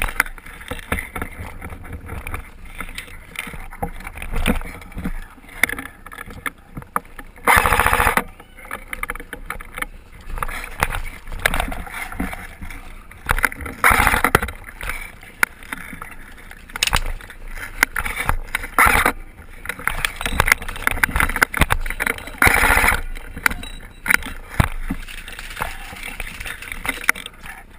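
Wind and handling rumble on a body-worn GoPro's microphone, with irregular clicks and several louder bursts about a second long, and some voices.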